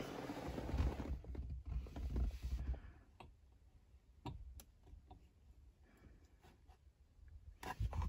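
Faint rustling and handling noise, then a few scattered light clicks and taps as the aftermarket short-throw shifter is set in place on the transmission.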